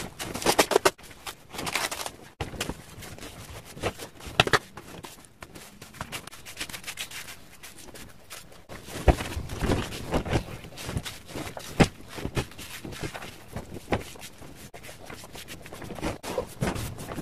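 Plastic film crinkling as gloved hands smooth it over a round mould, then wet cement-sand mortar being pressed and patted on by hand, with irregular soft slaps and scrapes.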